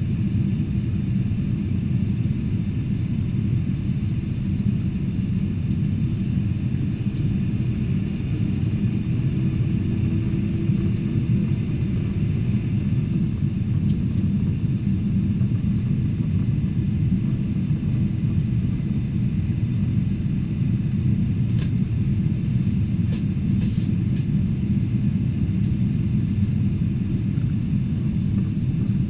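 Steady low rumble of cabin noise aboard a Boeing 747-400 in flight, engines and airflow heard from inside the plane. A faint rising tone comes through about a third of the way in.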